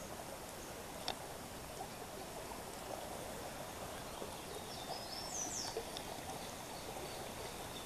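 Small creek running steadily, swollen with rainwater. A bird gives a few short, gliding calls about five seconds in.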